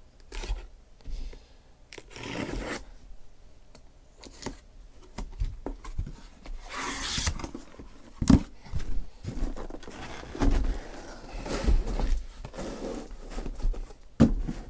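Cardboard shipping case being opened by hand: packing tape torn and the flaps scraped and rustled, in irregular bursts. A sharp knock comes a little past halfway.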